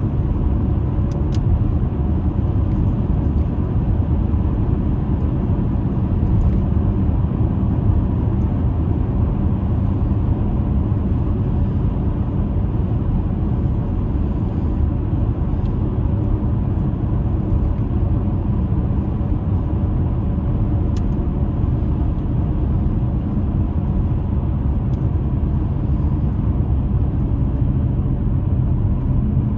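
Steady low rumble of a car driving on a snowy winter road: engine and tyre noise running evenly throughout, with no sudden changes.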